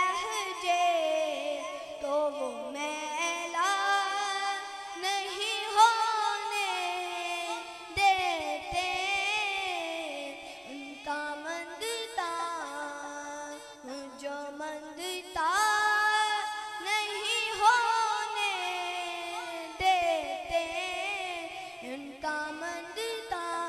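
A boy's high voice singing a devotional naat unaccompanied into a microphone, in long ornamented phrases with sliding, wavering pitch.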